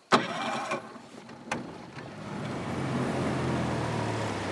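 Small outboard motor on a jon boat being started: a sharp rasping pull right at the start, a click about a second and a half in, then the motor running at a low steady hum from about two seconds in.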